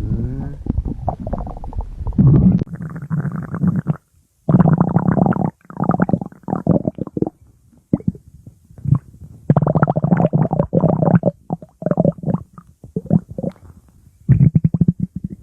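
A person's stomach growling, rumbling and gurgling in a string of uneven bursts a second or two long with short pauses between them, and one abrupt silent break of about half a second some four seconds in.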